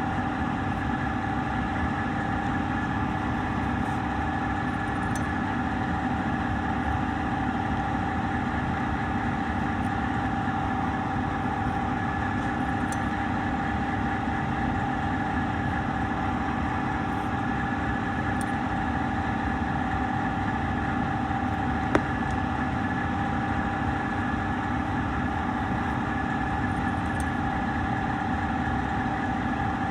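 Laminar flow cabinet fans running steadily: an even rush of blown air with a constant hum and whine. One sharp click about two-thirds of the way through.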